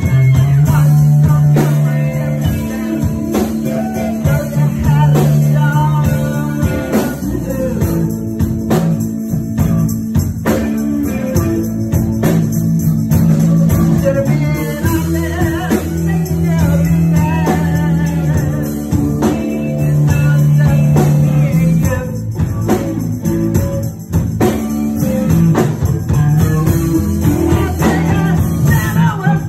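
A live band playing with a woman singing lead into a microphone, with held low notes and a steady beat under her voice.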